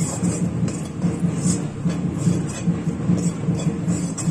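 Steel slotted ladle scraping and stirring dry gram flour against the bottom of a steel kadhai while the besan is being roasted, a series of irregular rasping scrapes. Under it runs a steady low rumble.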